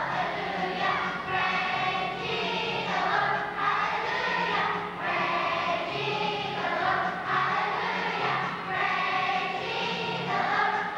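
Children's choir singing together over an instrumental backing track with a steady, repeating bass line.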